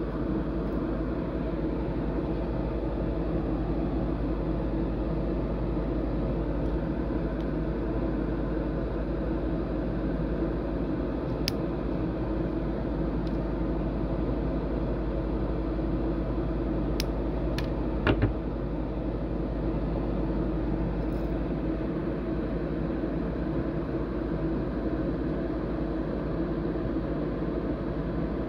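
Steady mechanical hum of ventilation running, with a few light clicks and one short knock about two-thirds of the way through.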